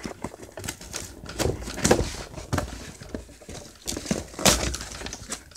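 A cardboard package being handled and opened: irregular crinkling, rustling and clicking, with a few louder crackles about two and four and a half seconds in.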